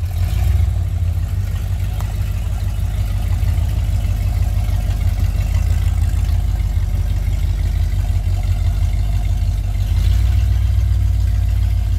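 8.4-litre big-block V8 of an off-road crawler running at low revs as it crawls up a muddy bank. The deep rumble grows a little louder about ten seconds in.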